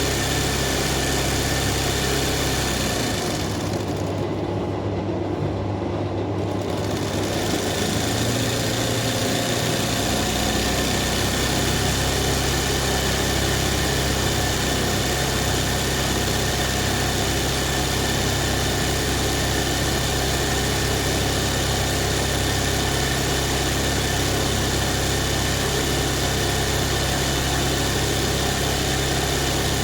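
Embroidery machine running steadily while it stitches a kasida design, with a brief lull in its upper sound a few seconds in before it carries on as before.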